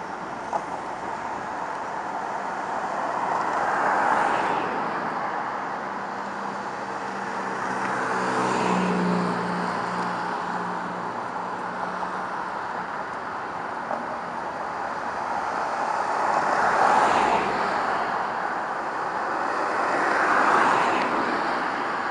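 Road traffic passing close by, four vehicles in turn, each swelling up and fading away, with a low engine hum showing briefly in the middle.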